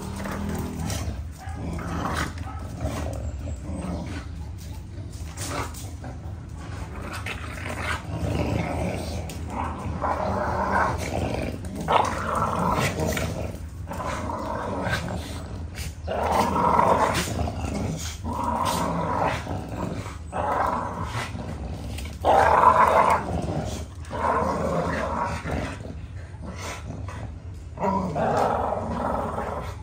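American bully dogs growling in play while tugging a toy between them: repeated growls of about a second each, coming more often in the second half, the loudest a little past the middle.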